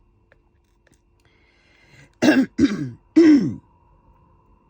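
A person coughing three times in quick succession, loud cough bursts with a falling pitch. It is the lingering cough of an illness she is taking antibiotics for, and she takes the cough coming up as a sign that the antibiotics are starting to work.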